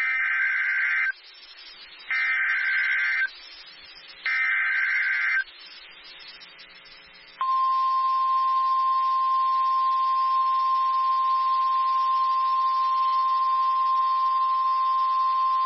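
NOAA Weather Radio SAME alert header: three data bursts of rapidly warbling two-pitch tones, about a second each and a second apart. About seven seconds in, the steady single-pitch 1050 Hz warning alarm tone begins and holds. The alarm tone is sent only ahead of a warning, here a new severe thunderstorm warning.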